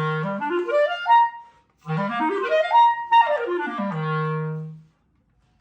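Clarinet playing smooth scale runs up and down over more than two octaves: it climbs to a held high note, pauses briefly, climbs again, then runs back down and ends on a long held low note.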